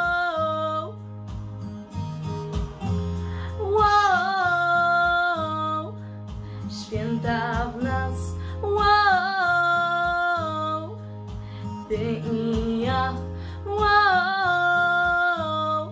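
A girl singing a Christmas pop song into a handheld microphone over an instrumental backing track, with long held, sliding notes about every five seconds.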